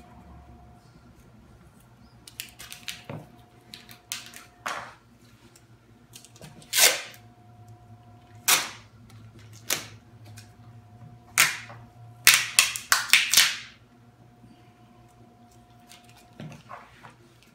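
Clear packing tape pulled off its roll in short, loud rips, about eight or nine times with a quick run of them a little past halfway, as strips are laid over freshly glued countertop edge banding to clamp it while the glue dries.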